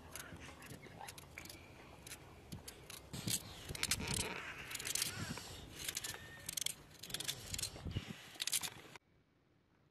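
Knife slicing raw carrots held in the hand: a run of crisp cutting snaps, with cut pieces dropping into a metal bowl. The cutting stops abruptly near the end.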